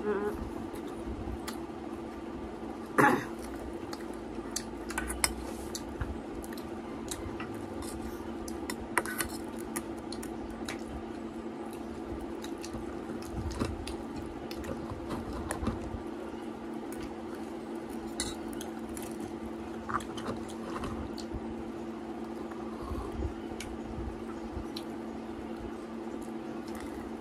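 Scattered clinks and taps of a stainless-steel bowl and dishes while people eat, the sharpest about three seconds in, over a steady low hum.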